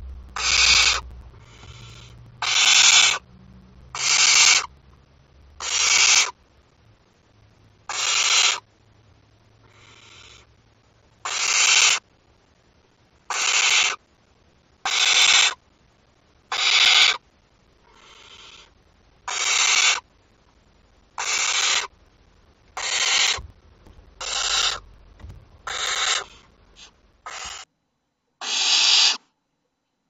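Barn owl chicks giving their harsh, hissing snore-like begging calls, a burst under a second long about every one and a half to two seconds, some fainter than others. A low rumble of the owlets shuffling in the nest box sits under the first few seconds.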